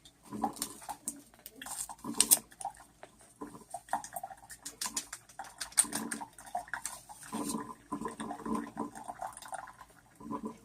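Irregular light taps and clicks of a spoon adding sugar to a cup of coffee, with faint pitched murmuring sounds in the background now and then.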